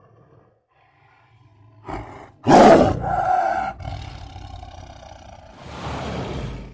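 Big-cat roar used as the voice of a saber-toothed cat: faint low growling, then a loud roar about two and a half seconds in that trails off, followed by a breathy rasp that cuts off suddenly near the end.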